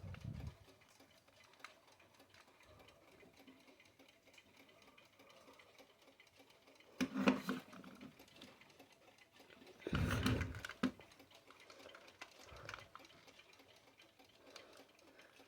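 Westclox quartz travel alarm clock ticking faintly. Two louder noises, each about a second long, come around seven and ten seconds in.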